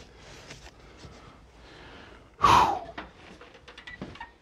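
A man lets out one sharp, loud breath, like a gasp or heavy sigh, about two and a half seconds in, with a few light clicks and knocks of handling around it.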